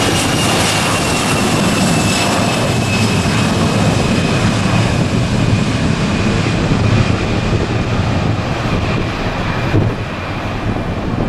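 An Airbus A319-114's twin CFM56 turbofan engines at takeoff thrust during the takeoff roll: a loud, steady jet roar with a high fan whine that slowly drops in pitch. The sound turns duller after about six seconds as the highest sounds fade.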